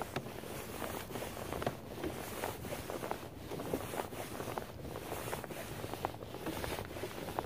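Water washing along the hull of a kayak moving slowly across calm water: a steady hiss with small irregular splashes and ticks, and wind buffeting the microphone.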